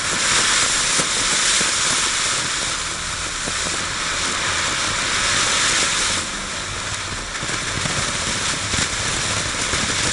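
Boomer 'Majestic' ground fountain firework burning with a steady hiss as it sprays sparks, easing off a little about six seconds in.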